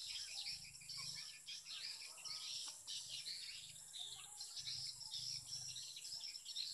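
Swiftlet twittering at a swiftlet house that plays recorded lure calls to draw the birds: many quick, high chirps overlapping without a break.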